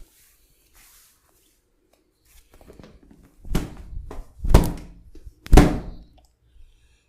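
Hand strikes of a massage on the body: four short thuds or slaps in about two seconds, starting about three and a half seconds in, the last one the loudest.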